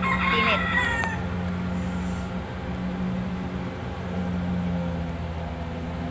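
A rooster crows once about a second long at the start, over the steady low drone of a rice harvester's engine working the field.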